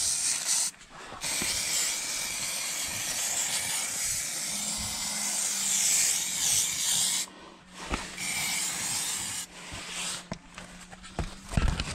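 Aerosol spray can of rust-converter coating hissing as it is sprayed in bursts: a short burst, then a long one of about six seconds, then a shorter one.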